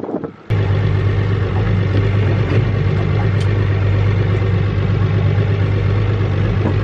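Boat engine idling steadily with an even, low hum, starting abruptly about half a second in.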